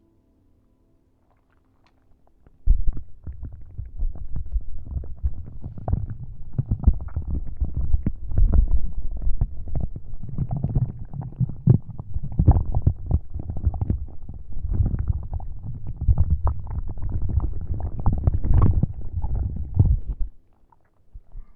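Dense rubbing and crackling of a prop handled right against the microphone, low and rumbling with many quick clicks. It starts suddenly about three seconds in and stops shortly before the end.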